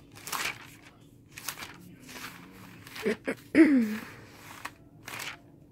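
Thin Bible pages being flipped, a run of short paper rustles as the pages turn one after another. About three and a half seconds in, a brief murmur from a woman's voice, falling in pitch, is the loudest sound.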